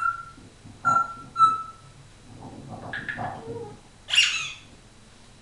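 African grey parrot vocalising: two short, clear whistles about a second in, then a soft mumbled chatter, then one harsh squawk shortly after four seconds.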